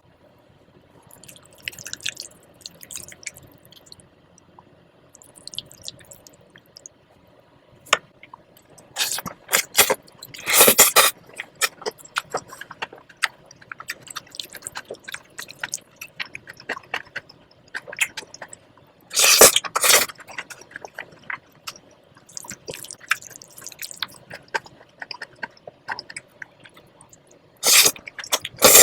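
Close-miked eating sounds: wet chewing, lip smacks and small mouth clicks. Louder bursts come about a third of the way in, about two-thirds in, and again at the end.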